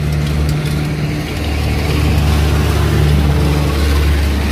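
A motor vehicle's engine running with a steady low drone, and a rushing noise building over it from about a second in.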